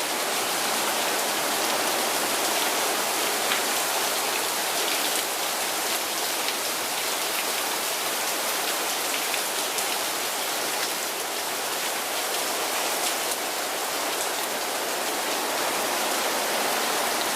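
Steady rain falling, a dense even hiss with scattered single drop hits standing out.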